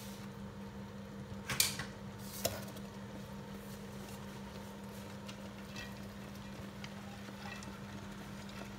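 A pot of stew simmering in a pan under a steady low hum, with two sharp utensil knocks against the cookware about one and a half and two and a half seconds in.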